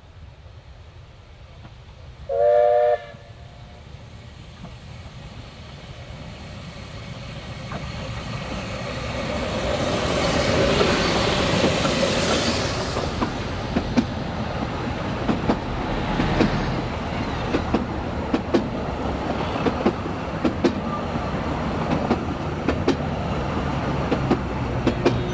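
Narrow-gauge steam locomotive sounds a short whistle about two seconds in, then approaches and passes close by. Its carriages follow, rolling past with wheels clicking over the rail joints.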